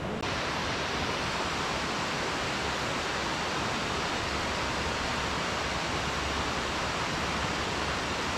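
Steady, even rushing of river water, starting abruptly a moment in.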